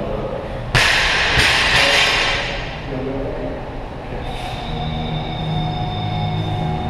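Loud scraping and rustling as the action camera is handled and set in place. It starts suddenly about a second in, with a second scrape just after, and fades over about two seconds; steady background tones come in near the middle.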